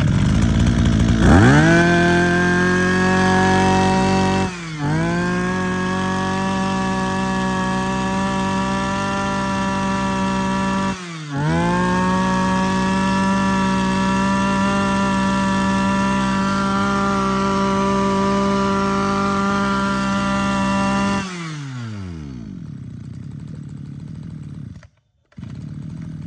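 Robin NB255 25 cc two-stroke brush-cutter engine revving up and held at high revs, with the throttle eased off briefly twice. Near the end it drops back to a quiet idle.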